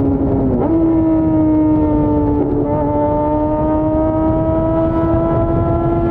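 Yamaha FZ6's inline-four engine pulling at high revs while riding. Its pitch dips and jumps up about half a second in, shifts again around two and a half seconds, then climbs steadily as it accelerates. A low rush of wind and road noise runs under it.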